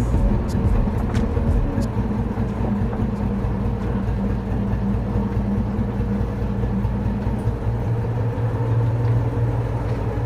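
Fishing boat's engine running steadily with a low hum, with a few faint clicks in the first two seconds.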